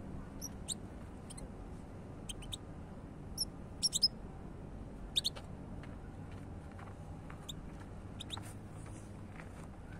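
European goldfinch calling in short, high, thin chirps and twitters, scattered irregularly and loudest about four and five seconds in.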